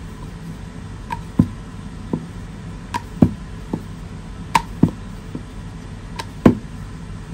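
Wooden rolling pin and round wooden rolling board (belan and chakla) rolling out puri dough: about a dozen irregular wooden knocks and clicks, some sharp and light, some duller thuds.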